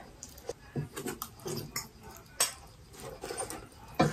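Eating sounds: chewing and slurping of noodles, with short clicks of a spoon and chopsticks on steel plates and a sharper knock near the end.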